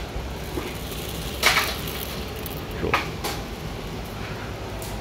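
ANYSORT VM764 color sorter running on mung beans: a steady machine hum with a few short hissing bursts, about one and a half and three seconds in.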